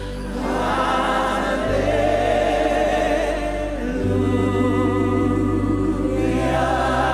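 Gospel worship choir holding long vibrato notes over sustained band accompaniment, with the low chord changing about two and four seconds in.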